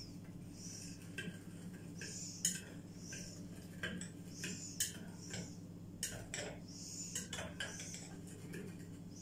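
Metal spoon stirring yeast, sugar and water in a small glass bowl, clinking against the glass at irregular intervals. A high chirp repeats about once a second behind it.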